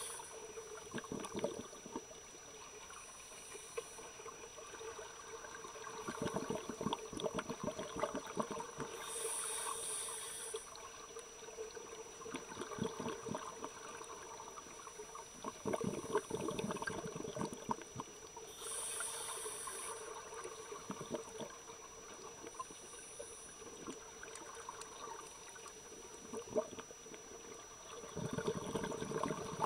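Scuba divers breathing underwater through open-circuit regulators: a short hiss from the demand valve on each inhale, about every nine to ten seconds, and between them several bursts of exhaled bubbles rumbling and crackling.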